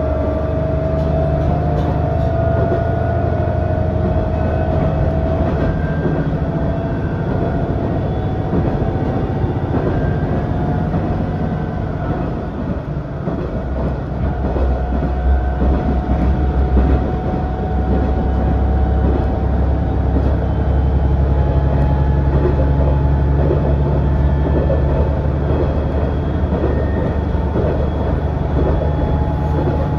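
Running sound of a KiHa 110 series diesel railcar heard from inside the car: a steady diesel engine and transmission drone with a whine that rises slowly in pitch as the train gathers speed, and light clicks of the wheels over rail joints. About halfway through the sound dips briefly, then a deeper rumble comes in.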